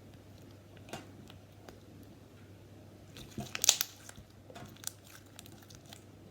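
Slime being handled: scattered small clicks and pops, with a short burst of crackling about three and a half seconds in.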